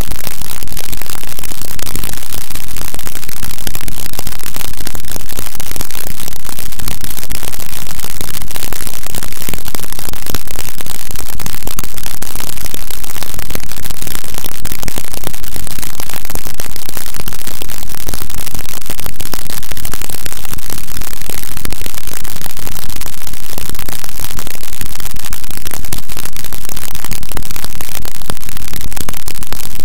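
Harsh noise music: a loud, unbroken wall of distorted static filling the whole range, with no pitch, melody or beat.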